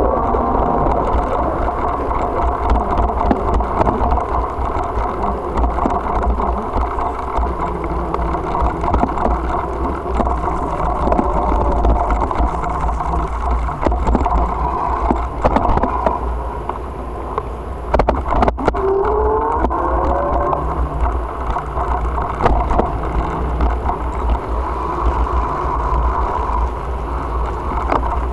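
Steady wind buffeting on the microphone and tyre noise from a moving bicycle, with a car going by in the opposite lane near the start.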